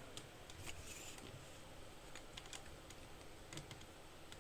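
Faint, irregular keystrokes on an optical-mechanical keyboard with tactile Gateron Brown switches, keys being pressed one after another at an uneven pace.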